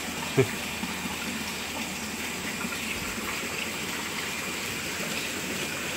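Steady rush of water flowing into a concrete fish-rearing tank, with one brief sharp sound about half a second in.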